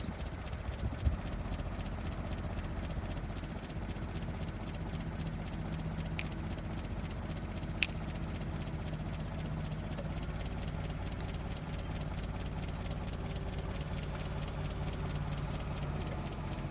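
Engine of a lifting machine running steadily as it extends its boom to raise a load, with a knock about a second in and a short click about halfway through.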